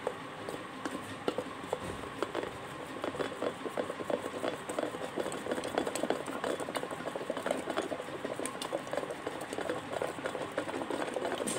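Electric hand blender running in a stainless-steel pot, blending yogurt and gram flour into a lump-free batter, with many small clicks and rattles throughout.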